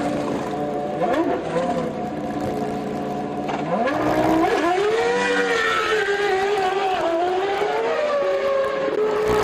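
1999 Formula One car's 3-litre V10 engine running at a steady low speed, blipped once about a second in, then revving up a few seconds in and holding high revs with a wavering pitch until near the end.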